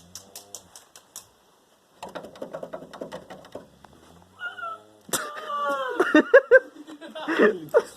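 Loud vocal animal-imitation cries with the pitch sliding up and down, from about five seconds in. Before them come a rapid rattling sound and a short rising call.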